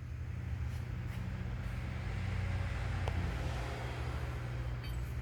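BOYE GFW5012 metal-cutting bandsaw running with a steady motor hum, with a hissing cutting noise from the blade that builds about a second in and eases near the end.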